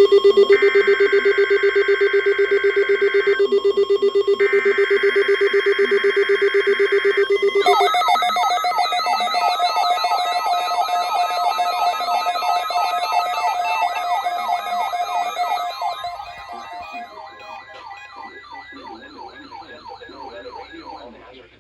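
NOAA Weather Radio weekly test alert tones. A steady electronic tone is overlaid with two buzzy bursts of paired high tones about a second apart, typical of the SAME digital header. About eight seconds in, it gives way to a fast, regular siren-like warble that fades out over the last few seconds.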